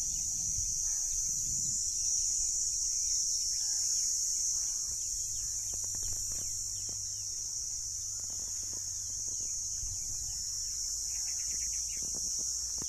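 A steady, high-pitched shrill drone of insects in the trees, with faint bird calls and a few light ticks and rustles.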